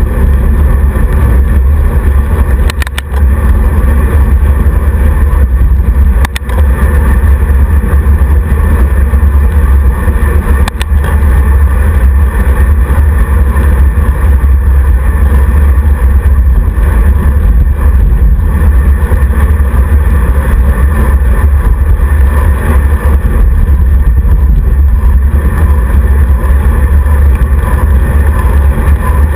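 Heavy wind rumble on the microphone of a camera riding on a moving road bike, steady and loud, with road and tyre noise under it and a few short knocks, about 3, 6 and 11 seconds in.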